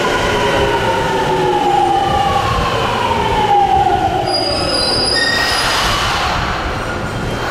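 Rinkai Line 70-000 series train's Mitsubishi GTO-VVVF inverter (MAP-108-15V57) whining as it brakes into the station, several tones sliding down in pitch together over the first five seconds. Brief high squeals as it nears a stop, then a broad hiss of air.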